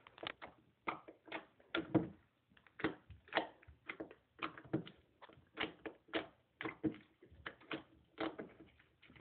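Soft white slime being squeezed and poked by fingers, giving a run of sharp clicks and pops, irregular, about two a second.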